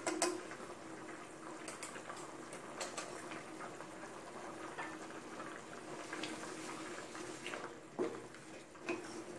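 Green curry with chicken simmering in an aluminium pot, bubbling with scattered small pops. Near the end a wooden spatula stirs it, knocking against the pot twice.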